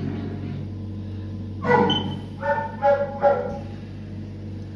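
A dog barking in short, sharp calls, four in quick succession starting about two seconds in, over a steady low electrical hum.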